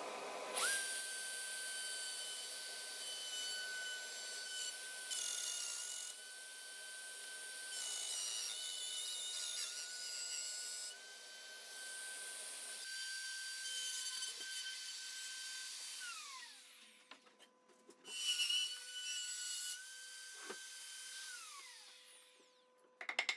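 Bosch plunge router starting up and routing an arc through a wood panel on a circle-cutting jig: a steady motor whine under the cutting noise. It spins down about 16 seconds in, is switched on again about two seconds later, and spins down again a few seconds before the end.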